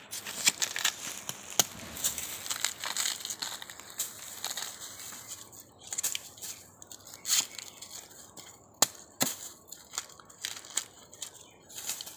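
A knife cutting into fresh bamboo shoots and their tough outer sheaths being split and torn off, a dense crackling and tearing with a few sharp clicks of the blade.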